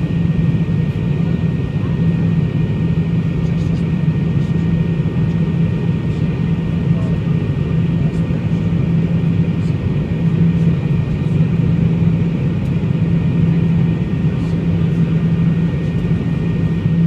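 Steady cabin noise of an MD-80 airliner in descent: a constant rush of airflow over a low drone from its JT8D engines, with a thin steady whine above.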